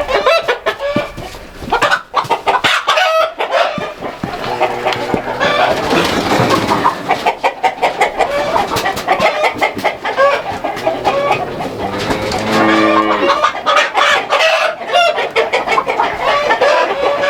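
A flock of chickens clucking and squawking, with many sharp clicks and scuffles among them. A rooster crows once about twelve seconds in.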